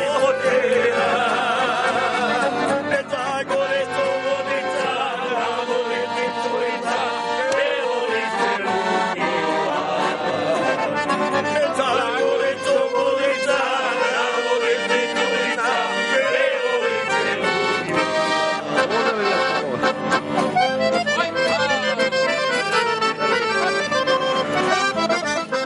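Accordion playing a traditional folk tune while a group of men sing along loudly.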